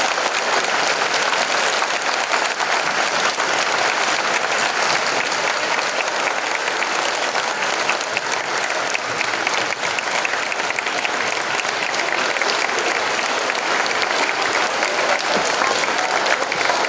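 Large audience applauding steadily, a long sustained round of clapping.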